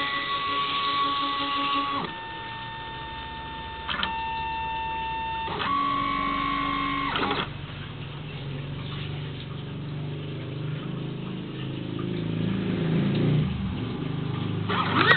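Teneth T24-A vinyl cutting plotter running an automatic contour cut: its carriage and feed motors whine at steady pitches that jump to a new pitch every second or two. From about seven seconds in, this gives way to a lower, uneven whirring as the head cuts and the sheet moves.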